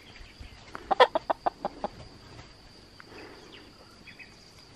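Chickens clucking: a quick run of short clucks about a second in, then softer.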